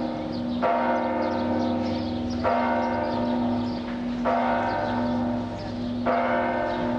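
Church bell tolling: four strokes about two seconds apart, each ringing on and fading over a steady humming tone.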